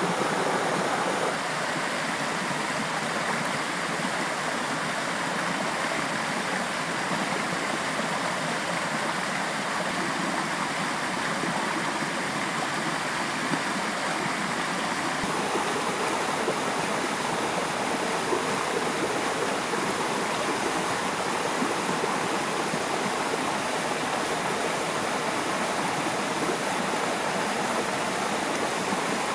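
Steady rushing of a river's flowing water, its tone shifting slightly about halfway through.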